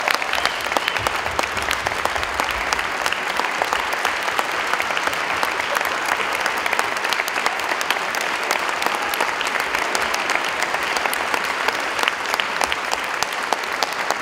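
Audience applauding: many people clapping steadily, a dense continuous patter of claps.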